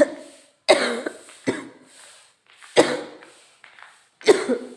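A woman coughing in a fit of about five loud, sudden coughs a second or so apart: the cough of a feverish cold.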